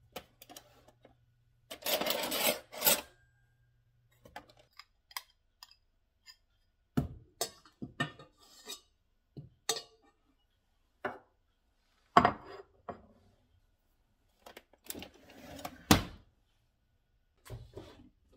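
A spoon scraping food out of a ceramic bowl into a stainless steel saucepan, with sharp clinks and knocks scattered throughout and two longer scraping spells, about two seconds in and near the end.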